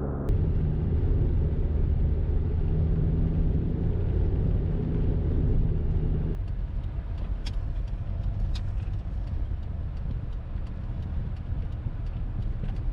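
Small car driving, heard from inside the cabin: a steady engine hum over low road rumble. About halfway through the engine tone falls away, leaving tyre and road rumble with a few light clicks.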